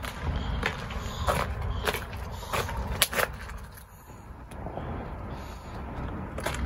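Footsteps of a person walking on pavement, just under two steps a second, pausing midway and resuming near the end, over a low steady rumble.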